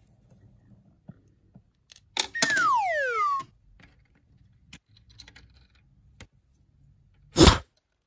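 Light clicks and taps of small plastic toy miniatures being handled, broken about two seconds in by a loud comedic sound effect, a whistle-like tone falling in pitch for about a second, and near the end by a single loud thud.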